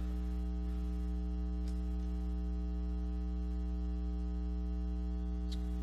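Steady electrical mains hum, a low buzz with a stack of overtones that does not change. Two faint ticks sound over it, about a second and a half in and near the end.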